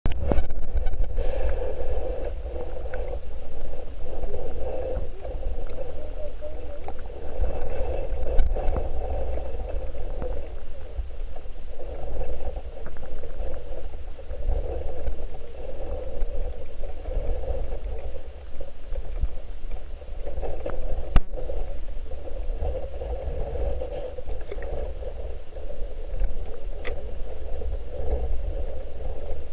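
Underwater creek sound picked up by a submerged waterproof camera: a steady low rumble with muffled gurgling of moving water. A few faint clicks, and one sharp click about two-thirds of the way through.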